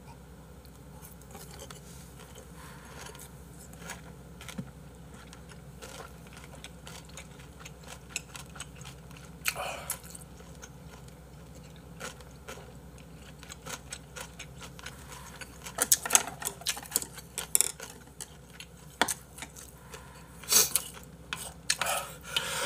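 Eating sounds: chewing, with light clicks and knocks of a spoon and chopsticks against a soup bowl that come more often in the second half.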